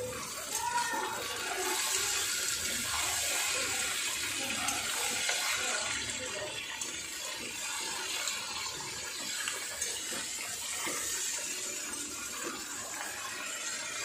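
Chicken pieces sizzling in hot oil in a steel kadai, stirred with a metal spatula that scrapes and clicks against the pan now and then. The sizzle is steady, a little louder between about two and six seconds in.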